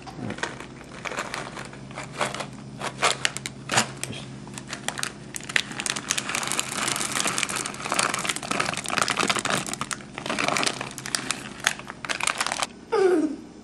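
A plastic bag of chocolate chips crinkling and rustling as it is shaken and tipped to pour the chips into a tub of batter. The crinkling grows denser in the second half.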